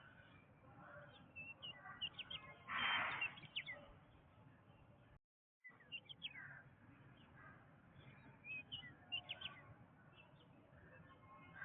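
Several birds chirping and whistling in short calls in a jungle chorus. A louder harsh, noisy burst comes about three seconds in, and the sound cuts out completely for about half a second near the middle.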